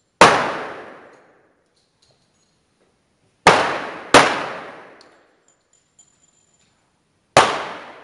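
.45 ACP pistols firing single shots in slow precision fire from several lanes: four shots, two of them about half a second apart near the middle. Each report rings out and dies away over about a second under the covered firing line.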